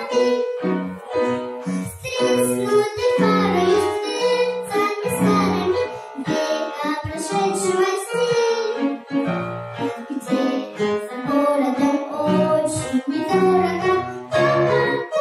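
A young girl singing a children's song in Russian with grand piano accompaniment, the voice carrying the melody over steady piano chords.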